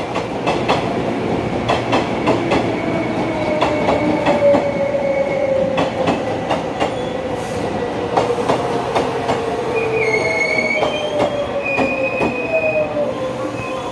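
Taiwan Railway EMU500-series electric trains passing close by, their GTO-VVVF inverter traction motors giving a whine that slowly falls in pitch. The wheels clack sharply, again and again, over the rail joints (fishplates), with a higher wheel squeal in the last few seconds.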